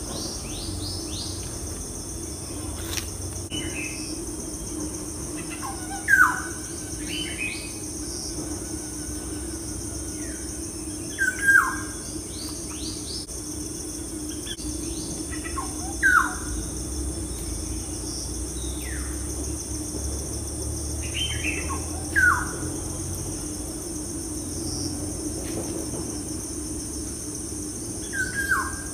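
Birds calling over a steady, high-pitched insect drone like crickets. A loud chirp that falls in pitch comes five times, about every five or six seconds, with fainter chirps in between.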